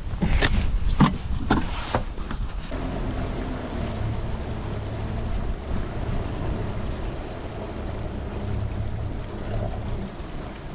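A few sharp knocks on the boat in the first two seconds, then a boat motor starts running steadily with an even hum from about three seconds in.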